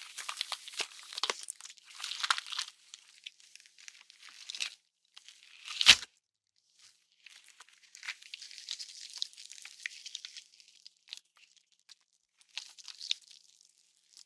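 Horror gore sound effects: wet, crackling flesh-tearing and squishing in bursts with short gaps, and one loud, sharp bone crack about six seconds in.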